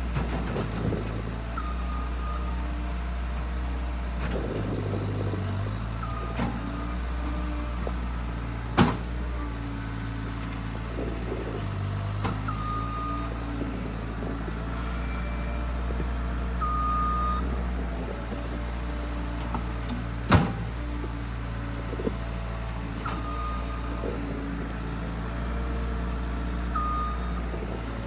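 Skid loader's engine running steadily at work, with crackling bursts and short high squeaks every few seconds. Two sharp loud knocks, about 9 s and 20 s in, stand out above the engine.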